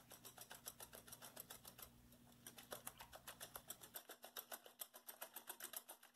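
Wire whisk beating eggs and milk in a glass bowl: faint, fast, even ticking of the whisk against the glass, about seven strokes a second, with a brief lull about two seconds in.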